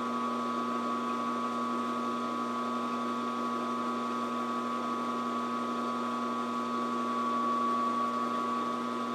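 Round column milling machine running steadily, its motor and spindle turning the homemade fly cutter with an even hum and a higher whine.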